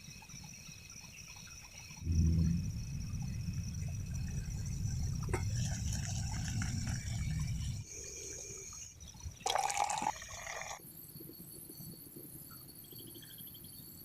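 Water sounds, loudest for about six seconds starting two seconds in, over the steady high chirring of insects in the background, broken by several abrupt cuts.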